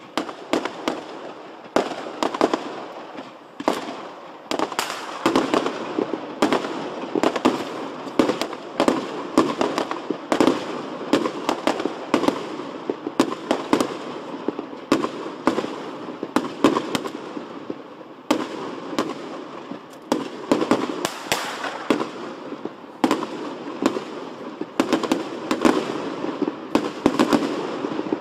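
Fireworks display: a dense, unbroken run of aerial shells and cakes bursting, several bangs a second, with crackling between the bangs.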